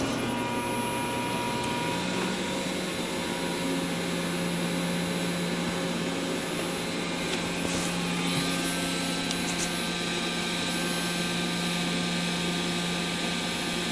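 Cortini lathe spindle and its drive motor running at a steady speed, a humming whine whose pitch steps up once, about two seconds in, and then holds.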